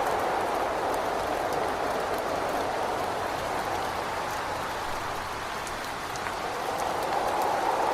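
Steady rain and wind against a window, easing slightly in the middle and swelling again near the end, with faint scattered ticks of drops.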